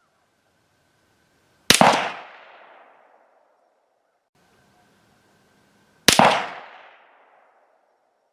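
Two rifle shots from an AR-15 chambered in 7.62x39 firing steel-cased Wolf 124-grain soft points, about four and a half seconds apart. Each sharp crack trails off in an echo lasting about a second and a half.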